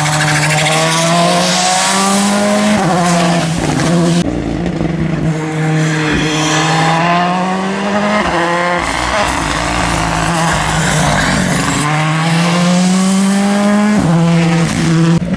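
Rally cars, a Volkswagen Polo GTI R5 and then a Ford Fiesta, driven flat out past on a wet tarmac stage. The engine pitch climbs and then drops back at each upshift, several times over, above a steady hiss of spray from the tyres.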